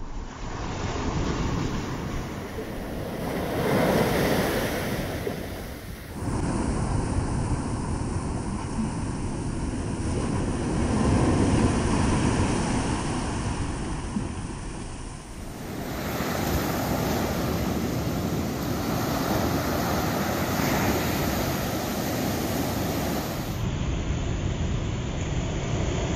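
Ocean surf breaking and washing up a sandy beach, swelling and ebbing, with wind buffeting the microphone.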